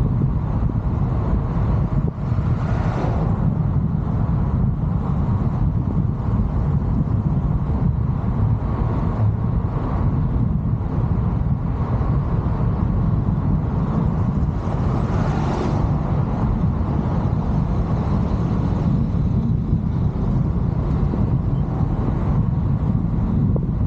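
Steady low rumble of road and wind noise from a car driving. There are two brief swells of higher noise, about three and fifteen seconds in.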